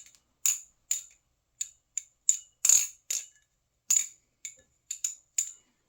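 Titanium Glidr balisong trainer being flipped: the handles and pivots clack and clink metallically, a dozen or so sharp clicks at an uneven rhythm.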